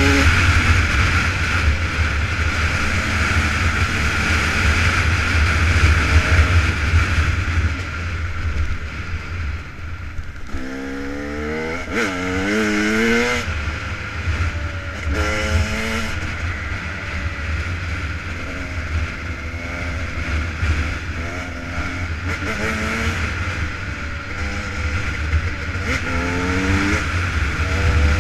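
KTM 300 EXC's single-cylinder two-stroke engine pulling the bike along, its pitch rising and dropping again and again as the rider works the throttle and shifts gears. Heavy wind buffeting on the helmet-mounted microphone runs underneath and dominates the first third.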